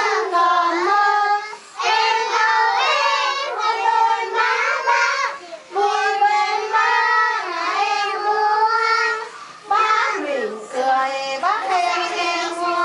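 A group of kindergarten children singing a song together, in phrases of about four seconds with short breaks between them.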